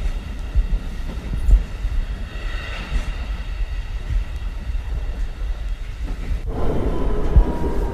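Riding inside a train: a steady low rumble with scattered low thuds. About six and a half seconds in the sound shifts and a slowly falling whine begins, as the train slows.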